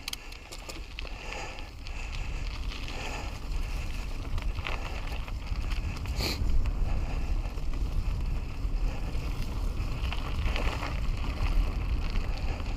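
Wind rushing over a helmet-mounted action camera's microphone while riding a mountain bike, with a steady low rumble from the tyres on the trail. A couple of short clicks or rattles from the bike come about five and six seconds in.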